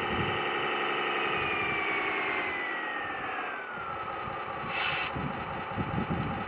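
Radio-controlled model construction vehicle running, with an engine-like drone and a whine that falls steadily in pitch over a couple of seconds as it slows. A short hiss comes near the end.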